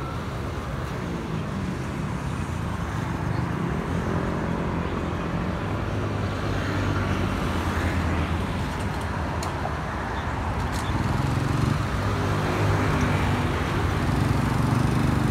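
Airbus A320neo's CFM LEAP-1A turbofan engines heard high overhead: a steady low jet roar that slowly grows louder.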